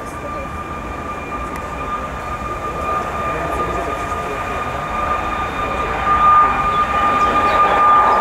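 Boeing 737 MAX 8 jetliner's CFM LEAP-1B turbofan engines running as it rolls along the runway: a steady high whine over a rumble, growing louder toward the end.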